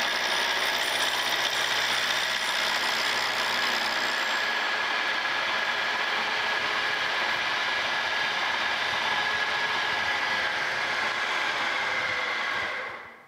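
Milling machine spindle driving an end mill through a steel table saw arbor as the table feeds it across, cutting a wrench flat: a steady machine whine with a steady cutting noise. The sound falls away sharply near the end as the spindle is stopped.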